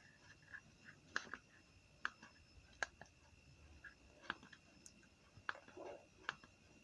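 Faint, scattered light clicks and taps, about seven or eight at irregular gaps, from small items such as the meter and its accessories being handled.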